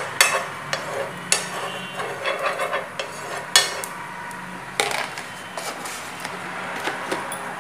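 Steel spoon scraping and clicking against a flat frying pan as cooking oil is spread across it. The sharp clicks come thick at first and thin out after about four seconds.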